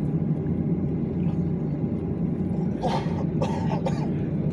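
Steady low drone of the jet engines heard inside an airliner cabin, with a passenger coughing three short times about three seconds in.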